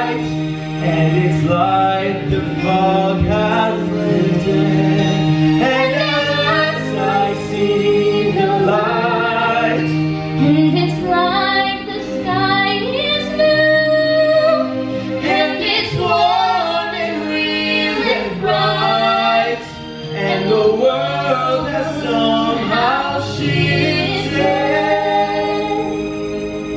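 A woman and a man singing a musical-theatre duet into microphones, with instrumental accompaniment holding long low notes beneath the voices.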